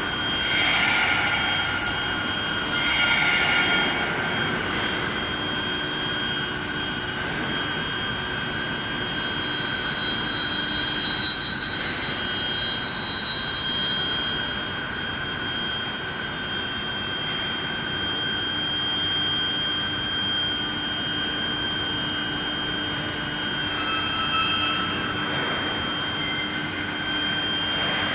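Induction heating and surface-quenching line for threaded rebar running: a steady high-pitched whine of several held tones over continuous machinery noise, briefly louder and uneven about ten to fourteen seconds in.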